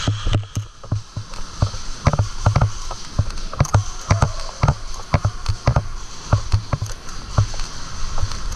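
A quick, uneven series of dull thuds, each with a sharp click, about three a second, starting about two seconds in.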